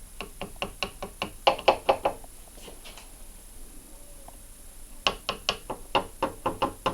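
Back end of a brush rapidly tapping on a TV power-supply transformer, about five taps a second, in two runs with a pause of a few seconds between: a tap test to provoke an intermittent fault.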